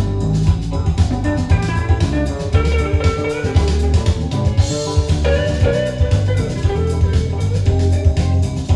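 Music with a steady drum beat, a strong bass line and a bright pitched melody, played back through SEAS Bifrost loudspeakers driven by a DIY tube amplifier.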